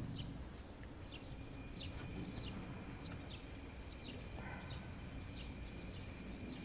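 A bird calling: a run of short, high chirps, each sliding downward, repeated about every half second over faint outdoor background noise.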